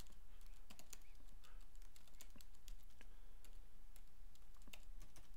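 Typing on a computer keyboard: irregular key clicks with short pauses, over a steady low hum.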